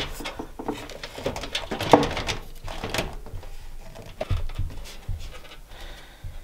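Scattered light clicks and knocks of a motherboard being lowered into a Corsair 4000D PC case and settled onto its standoffs, the sharpest knock about two seconds in.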